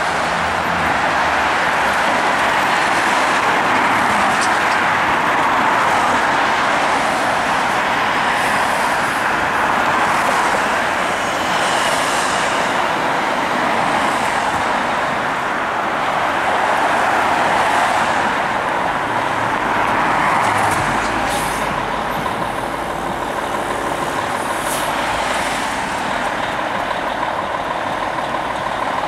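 Diesel fire engine running with steady engine noise and street traffic, and a pickup truck driving past at the start. Brief air hisses from the rig come through now and then.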